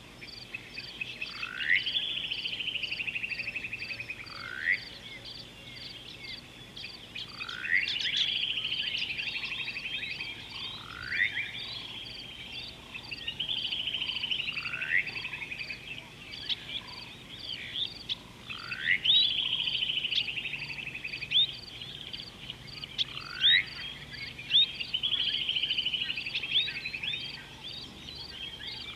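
Repeated wild animal calls: five long trilled calls that rise and then slide down, about every six seconds, with short upward-sweeping whistles between them and a steady high-pitched ticking about twice a second.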